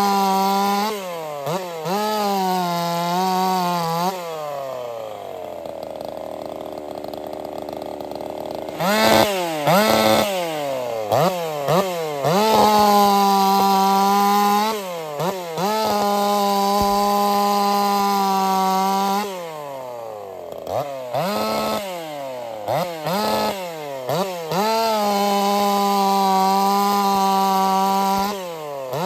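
Jonsered 2149 two-stroke chainsaw, built as a 50cc-class racing saw, at full throttle cutting cookies off a log with a steady high engine note through each cut. Between cuts it drops off and is blipped back up in quick revs. Near the start it slows gradually over about four seconds before revving up again.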